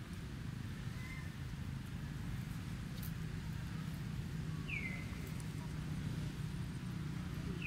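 Steady low outdoor rumble with a few short, high, falling squeaks from a small animal, one a little over halfway through and another at the very end.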